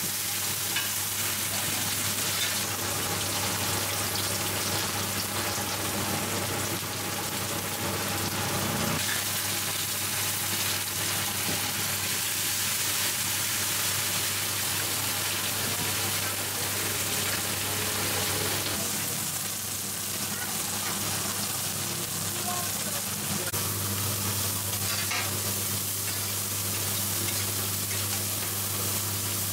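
Batter, egg and shellfish pancakes (hoi tod) sizzling steadily in hot oil on a large flat iron pan, with metal spatulas scraping and tapping on the pan. A faint low hum runs underneath.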